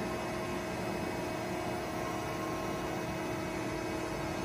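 Steady hum of a CNC press brake's servo-driven hydraulic drive, running evenly with a few steady tones.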